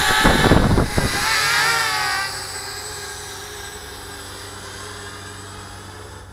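Quadcopter's 1900kv brushless motors and propellers whining, the pitch shifting up and down as the throttle changes, with gusts of prop wash buffeting the microphone early on. A little over two seconds in the whine drops away and then fades steadily.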